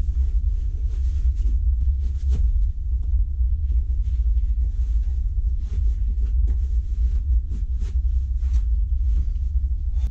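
Steady low rumble aboard a moving cruise ferry, with faint, irregular clicks and knocks over it.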